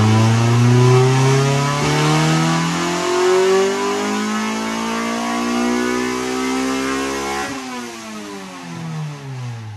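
Honda B20VTEC four-cylinder engine in a Civic making a full-throttle chassis-dyno pull in third gear, revs climbing steadily. About seven and a half seconds in the throttle closes and the revs fall away.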